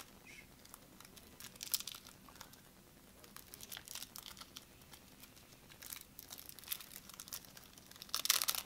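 Crinkling and tearing of a trading-card deck's packaging being opened by hand: scattered short crackles, with a denser burst of crinkling near the end.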